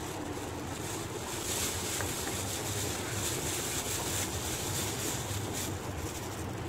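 Thin plastic bag crinkling and rustling in bursts as a bunch of cluster beans is shaken out of it onto a tray.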